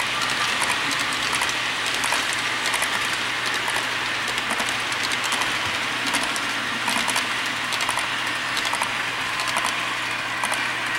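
HO-scale model double-stack container train rolling past, its wheels running and clicking along the track.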